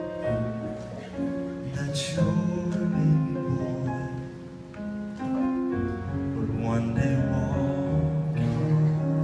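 Live music: a vocal group singing a slow ballad with keyboard accompaniment, with long held notes.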